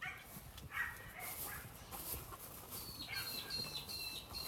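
A bird calling outdoors: a short whistled note about a second in, then a run of four or five short, evenly pitched high notes from about three seconds in, over faint rustling.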